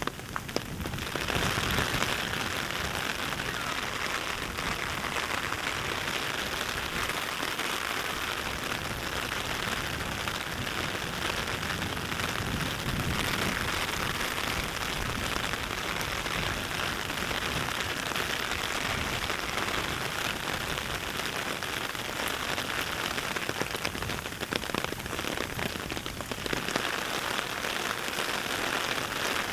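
Heavy rain falling steadily in a dense, even hiss, a little softer near the end.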